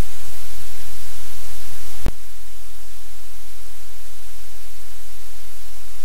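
Steady loud hiss of static noise with a low hum underneath. A single sharp click comes about two seconds in, after which the hiss is slightly quieter.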